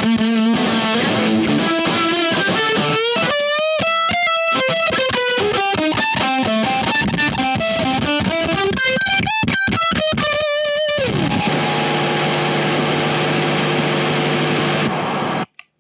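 Electric guitar through a stack of overdrive and fuzz pedals (Wyong Rd Electronics Keris with a No Mask and a Black Russian Big Muff-style fuzz), heavily distorted. It plays a single-note lead with string bends, slides down about eleven seconds in, then lets a chord ring that is cut off sharply just before the end.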